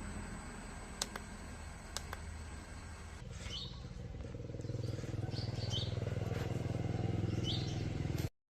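A steady low mechanical hum that grows louder about three seconds in, with two sharp clicks a second apart before it and a few short bird chirps over it. The sound cuts off abruptly just before the end.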